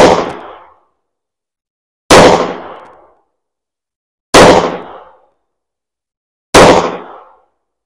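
IWI Masada S (Slim) 9mm pistol firing four single aimed shots about two seconds apart, each a sudden report with a short echoing tail.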